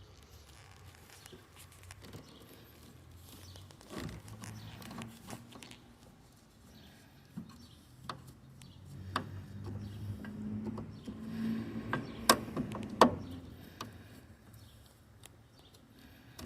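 Handling noises from work on a refrigerator's fittings: scattered knocks and clicks with a low, uneven rumble in the middle, and two sharp clicks near the end.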